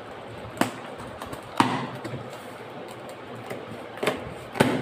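Hands handling a cardboard monitor box, with about four short sharp taps and knocks on the cardboard spread over a few seconds.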